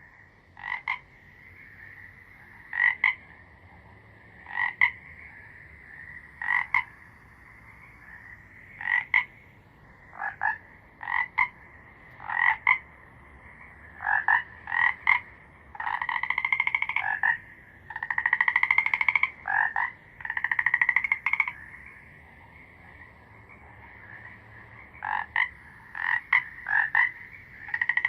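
Frogs croaking: short croaks repeat every second or so, with three longer, rapidly pulsed calls in the middle, over a steady high-pitched drone.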